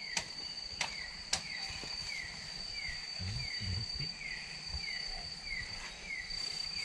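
Night insects calling: a steady high-pitched drone with a short falling chirp repeated about every half second. Three sharp clicks come in the first second and a half, and a few low thumps near the middle.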